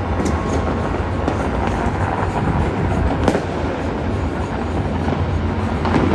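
Distant New Year's fireworks and firecrackers going off all over a city: a dense, continuous crackle and rumble with scattered sharper bangs, the sharpest about three seconds in.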